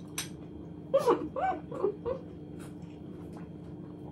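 A woman's short 'mmm' sounds of delight while eating: a quick run of four or five brief humming moans, each rising and falling in pitch, about a second in.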